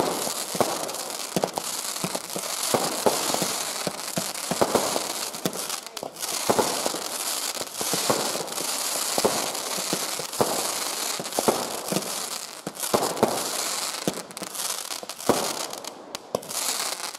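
Consumer fireworks firing in quick succession: many sharp launch pops and small bangs at irregular intervals over a steady crackling hiss from burning stars and comet tails.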